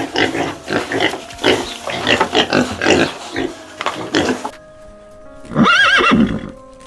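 Pigs grunting and squealing in a rapid jumble of short calls, then a gap and one drawn-out rising-and-falling call near the end, over soft background music.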